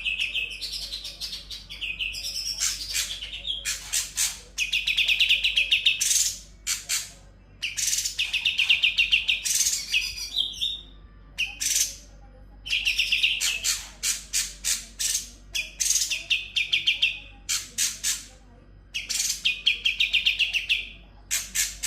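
Cucak cungkok songbird singing in long, fast rattling trills of a second or two each, repeated again and again, broken up by sharp high chips and short notes.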